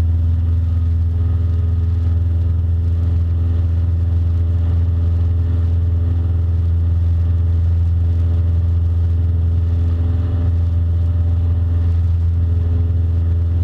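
Cessna 172 Skyhawk's four-cylinder piston engine and propeller running steadily, heard inside the cockpit as an even, unchanging hum.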